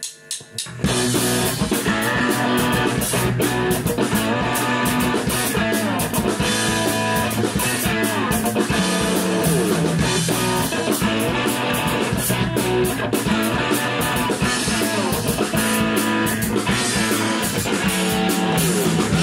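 Rock band playing: a Mapex Saturn drum kit with Zildjian cymbals and a Ludwig Supraphonic snare, together with electric guitars, heard from the drummer's seat. The full band comes in about a second in after a brief quieter start.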